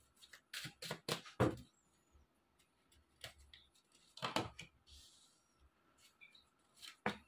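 Tarot cards handled in the hands: a run of short clicks and taps as the deck is squared and cards are slid out, a longer rustle about four and a half seconds in as a card is drawn and laid on the cloth-covered table, and one last sharp tap near the end.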